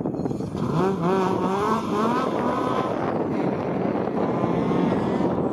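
Ford Escort Mk2 rally car accelerating hard out of a bend, its engine note rising three times in quick succession, dropping briefly at each upshift, then running on more steadily as the car pulls away.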